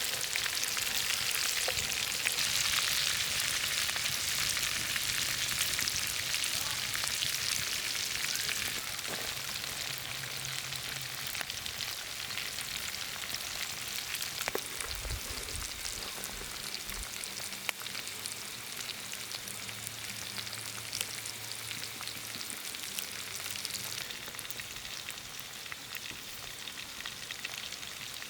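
Food frying on a hot griddle: a steady sizzle with many small crackles, easing off a little after about eight seconds.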